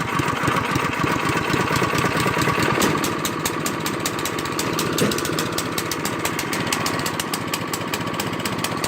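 Snowblower's gasoline engine running steadily just after being pull-started.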